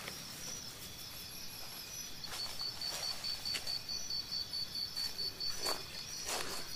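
An insect chirping in a steady run of rapid, high-pitched pulses that grows louder about two seconds in, with footsteps crunching through dry grass and leaves.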